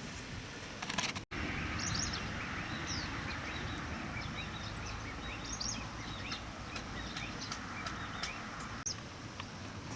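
Outdoor ambience: a steady rushing background with small birds giving short, quick falling chirps again and again. The sound drops out for an instant about a second in.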